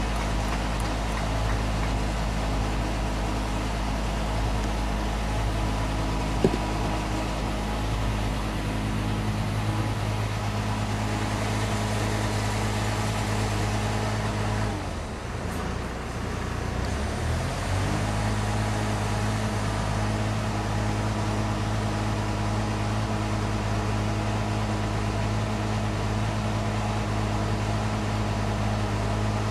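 Engine of an aerial work platform running steadily with a low hum. About halfway through its pitch drops briefly and comes back up, and a single sharp click sounds about six seconds in.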